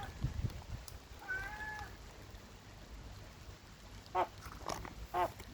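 Seagull calling: one drawn-out call about a second and a half in, then three short, sharp calls about half a second apart near the end.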